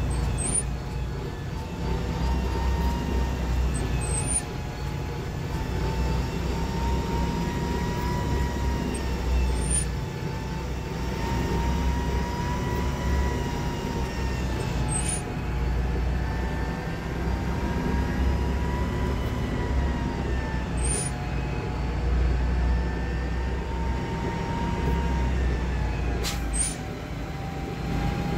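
MB-trac 1300 tractor's six-cylinder turbo diesel running under way, heard from inside the cab: a steady deep running note with a whine over it that drifts slightly up and down in pitch. A faint high chirp comes every five or six seconds.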